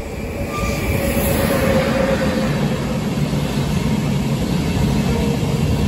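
Railjet passenger train passing, its wheels rumbling on the rails; the rumble swells over the first second and then runs on steadily.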